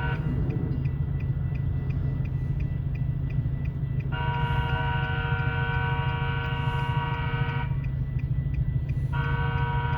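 Train rumbling past with a steady low drone, while a multi-chime train air horn sounds a long chord about four seconds in and starts again near the end.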